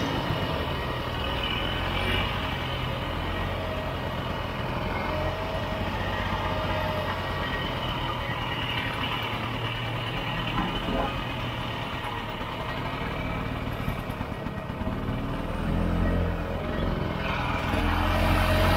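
Vintage Ski-Doo snowmobile's two-stroke engine running under way through snow. The engine eases off about three-quarters of the way through and picks up again near the end.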